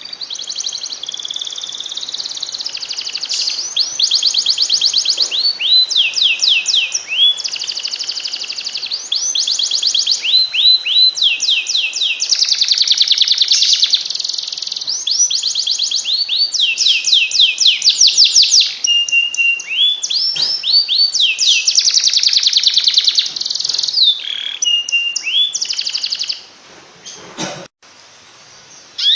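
Canary singing a long, continuous, high-pitched song of fast rolling trills and rapid runs of repeated down-slurred notes: a masteran song meant to set other canaries singing. The song breaks off near the end.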